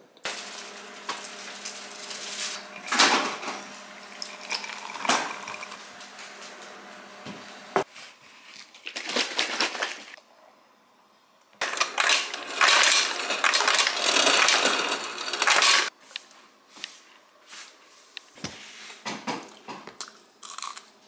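Kitchen handling noises: clatter and clicks of dishes and utensils, with a few seconds of loud steady rushing noise partway through.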